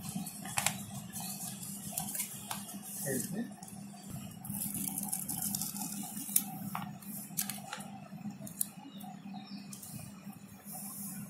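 Glossy plastic sticker sheet crinkling and rustling as stickers are peeled off their backing paper by hand, with scattered small clicks and ticks, over a steady low hum.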